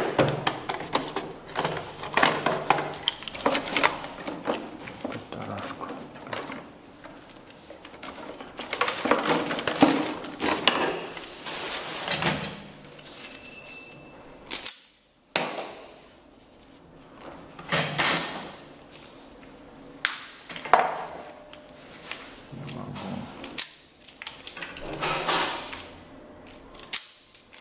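Plastic cases and tools clattering as hands rummage through a packed toolbox, then the sharp clicks and snaps of an automatic self-adjusting wire stripper stripping insulation off a wire.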